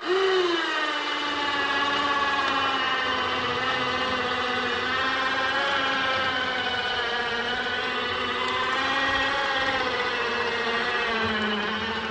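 Electric winch motor running under load, hoisting a roughly 250-pound air compressor on chains. It starts abruptly and then holds a steady whine, the pitch wavering slightly.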